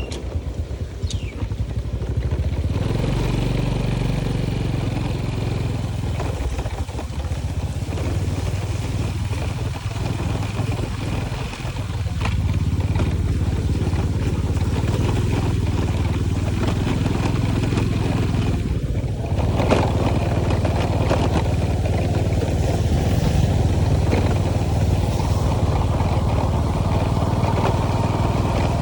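Motorcycle engine running steadily at an even low pitch, with a steady rushing noise over it; the sound dips and changes briefly about two-thirds of the way through.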